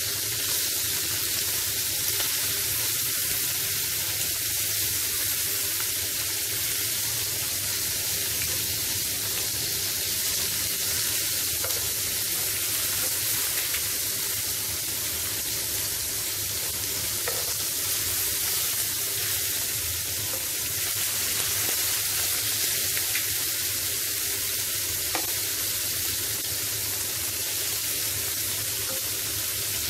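Masala-coated prawns sizzling steadily as they shallow-fry in coconut oil in a non-stick pan, with a few faint clicks now and then from a metal spoon turning them.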